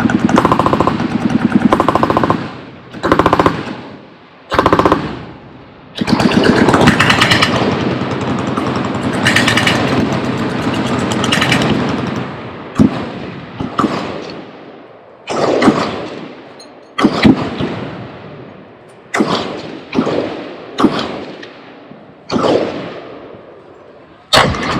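Machine guns firing together on a firing line, in rapid bursts and then a long sustained stretch. From about halfway, the fire thins out to separate loud bangs, each followed by a trailing echo.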